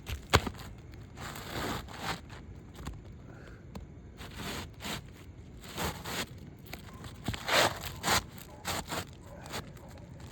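An asphalt roof shingle being slid and worked into place under the overlapping shingles: irregular scraping and rustling of grit-surfaced shingle on shingle, with a sharp tap about half a second in.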